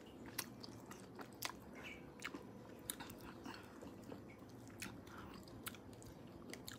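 Close-up chewing and biting of santol fruit: irregular small mouth clicks, a few each second.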